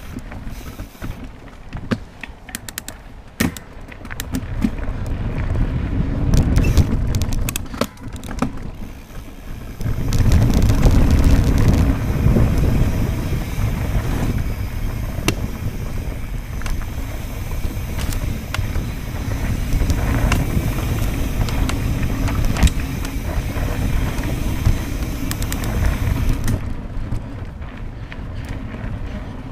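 Mountain bike ridden fast down a dirt singletrack: a heavy low rumble of wind buffeting the microphone and tyres over dirt, growing a few seconds in and easing near the end, with frequent sharp clicks and rattles from the bike over bumps, thickest in the first several seconds.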